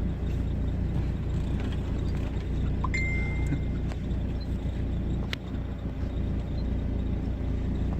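Car audio system with two Sundown X15 subwoofers playing heavy bass: a deep, steady low rumble, with a short high beep about three seconds in and a sharp click a little after five seconds.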